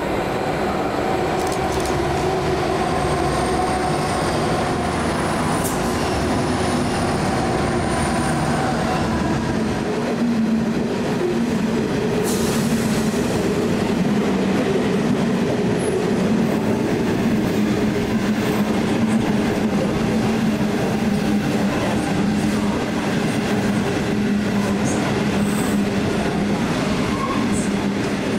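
Train running along the rails, loud and steady, with a faint high squeal during the first ten seconds and a low hum that grows stronger from about ten seconds in.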